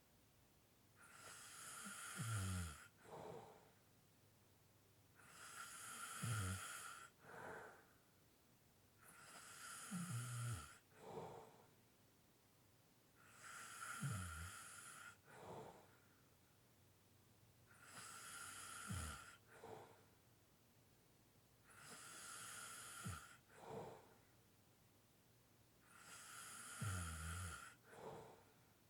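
A person snoring lightly, with heavy breathing in a slow, even rhythm of about one breath every four seconds. Each breath is a long airy hiss that ends in a short, low snore dropping in pitch.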